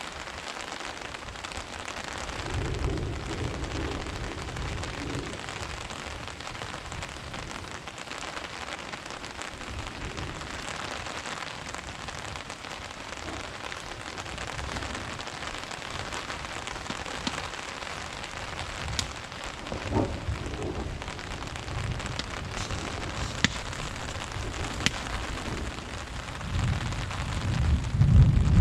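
Steady rain falling in a thunderstorm, with a few sharp drip ticks. Low rumbles of thunder come about three seconds in and again around twenty seconds, and a louder rumble builds near the end.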